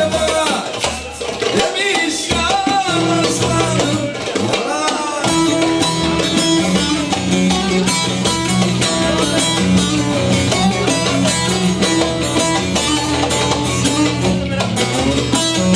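Upbeat music with drums and plucked, strummed strings, a melody line weaving over it in the first few seconds, then a steady instrumental groove with a sustained bass from about five seconds in.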